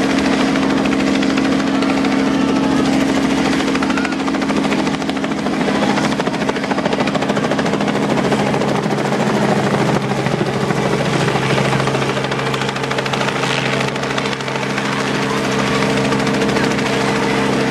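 Light helicopter hovering low overhead, its rotor beating fast and evenly over a steady engine tone.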